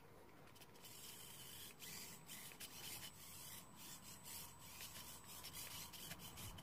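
A 1:76 Diatone Q25 micro RC car driving on a cloth-topped rubber track mat: a faint, high, hissy whir that starts about a second in and keeps breaking off for split seconds as the throttle is worked.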